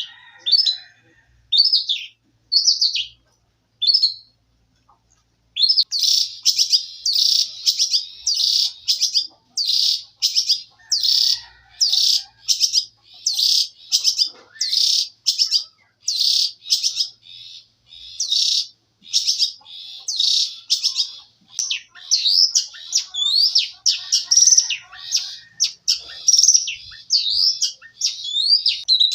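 Songbird singing a canary-style song: a few separate high chirps at first, then from about five seconds in a long, unbroken run of rapid, high chirps and trills.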